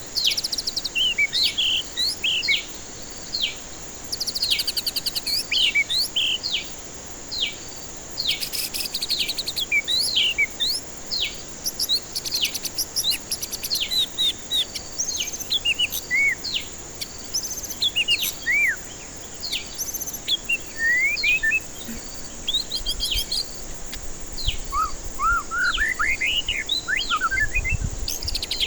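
White-rumped shama singing a rapid, varied song of whistled sweeps and fast rattling trills, with a steady high hiss beneath.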